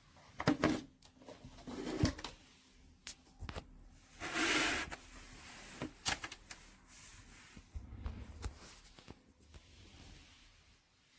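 Handling noises on a desk: a scatter of sharp clicks and knocks, with a short rustle about four and a half seconds in.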